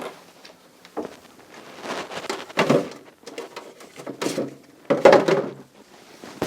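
Kitchen handling noises: a run of irregular knocks, rattles and thuds as things are moved about, perhaps a door or drawer among them, the loudest about two-thirds and five seconds in.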